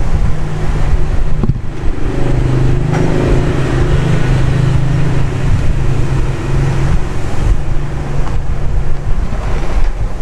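Steady rushing air with a low hum that strengthens from about two seconds in to about seven seconds in, from a hot-air rework gun used to desolder and replace a power-supply IC.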